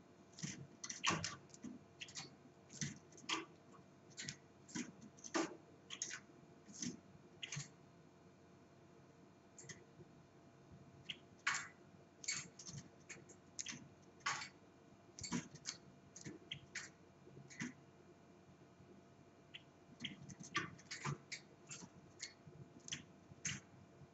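Irregular sharp clicks and taps, coming in quick clusters with short pauses, over a faint steady hum.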